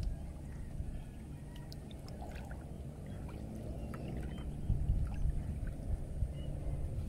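Paddle strokes through river water beside a small canoe, with water swishing and dripping off the blade over a steady low rumble.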